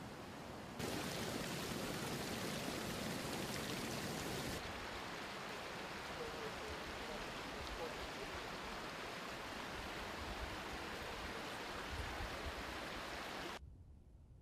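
Floodwater rushing across a flooded road and field, a steady noisy rush that jumps louder about a second in and eases a little a few seconds later, then drops away abruptly near the end.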